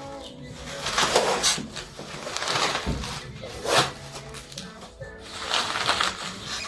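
Plastic bubble wrap being torn and crinkled by hand in a series of uneven crackly bursts, over background music.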